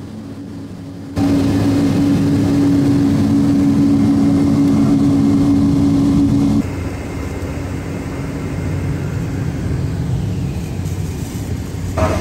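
Boeing 777's jet engines running at low power as the airliner taxis, a steady hum with a few low tones. The sound jumps abruptly louder about a second in and drops back abruptly a little past the middle, as at cuts between clips.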